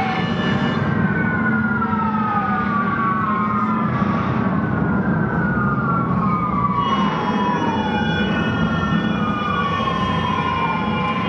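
Fire-engine siren wailing in repeated falling sweeps, one every couple of seconds and some overlapping, over a steady low rumble.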